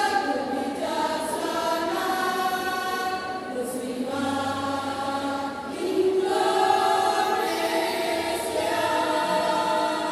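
Women's choir singing in held chords, phrase after phrase, with a short break about three and a half seconds in and a louder entry around six seconds.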